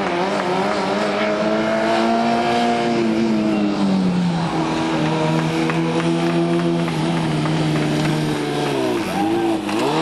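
Formula Student race car's engine running hard on the track. Its note climbs in the first couple of seconds, drops about four seconds in and holds steady, then dips sharply twice near the end before picking up again.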